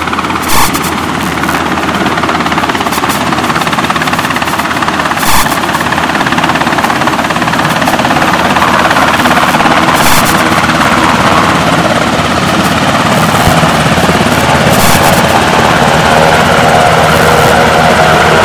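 Navy H-60 Seahawk helicopter's rotor and turbine engines running as it approaches and hovers close by, growing louder over the second half. Two brief loud thumps come in the first few seconds.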